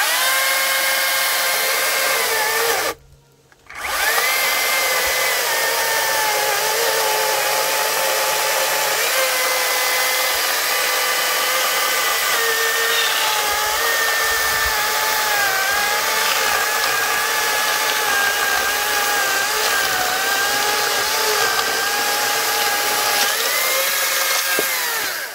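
Cordless electric chainsaw whining as it spins up, then cutting out briefly about three seconds in. It restarts and slices through a log: the motor's pitch sags under the load and wavers through the cut. It climbs back up as the chain breaks through near the end, then stops.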